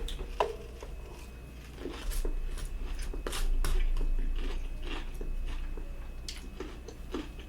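Close-miked eating: chewing with irregular mouth clicks and smacks.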